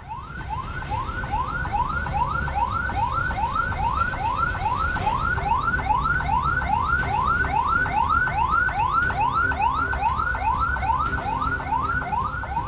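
Ambulance siren in a fast yelp, rising wails repeating about three times a second over a low rumble.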